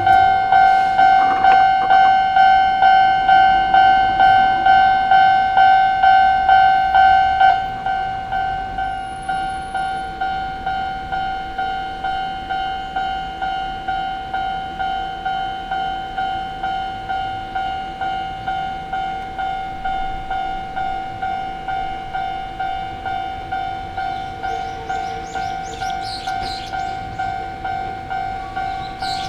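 Japanese level-crossing warning bell ringing, a steady 'kan-kan' tone struck about twice a second. It drops in level about 7.5 s in, and fainter high-pitched sounds join near the end.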